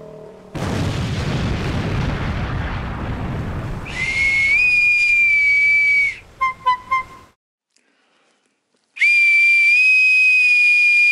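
A loud rumbling boom that lasts several seconds, with a long shrill whistle blast over it. Three short toots follow, then a short silence and a second long, steady whistle blast near the end.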